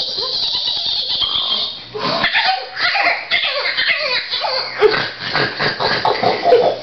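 Teenagers making silly mouth noises: a steady hiss for about two seconds, then a run of laughter mixed with rough, uneven vocal noises.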